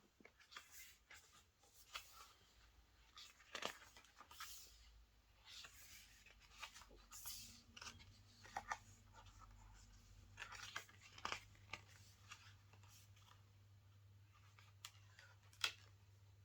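Quiet handling of a Blu-ray mediabook's packaging: scattered rustles, light taps and crisp clicks of paper and plastic, with one sharper tick near the end.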